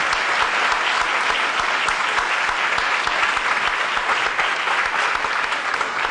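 Theatre audience applauding, a dense even clapping from many hands.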